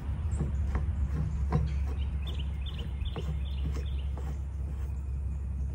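Light clicks and knocks of spin-on fuel filters being handled and turned onto an AirDog lift pump's filter head, over a steady low rumble. A few faint high chirps about two to four seconds in.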